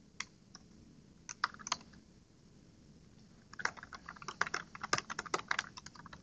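Typing on a computer keyboard: a few scattered keystrokes at first, then a quick, steady run of typing from about halfway through.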